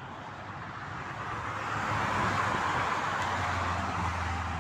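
A vehicle passing on a motorway: tyre and road noise swells to a peak about two seconds in and then eases slightly, with a low engine hum coming in near the end.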